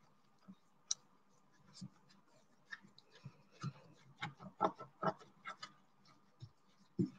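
Wooden popsicle stick stirring a thick dough of white craft glue and talcum powder in a plastic bowl: faint, irregular clicks and scrapes, busiest about halfway through.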